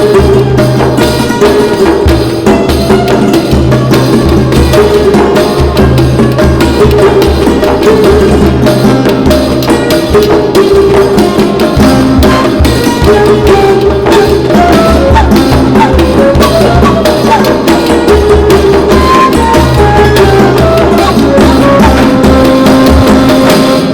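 Background music with a steady drum rhythm and a melody over it, in a folk or Middle Eastern style.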